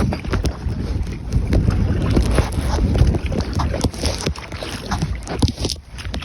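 Canoe paddling in a breeze: wind rumbles steadily on a phone microphone inside a waterproof case, with frequent small splashes, knocks and clicks from the paddle strokes and gear.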